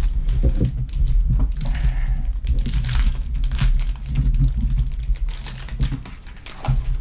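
Foil-wrapped Pokémon booster packs being handled and sorted, crinkling and rustling with many light clicks, over a steady low hum.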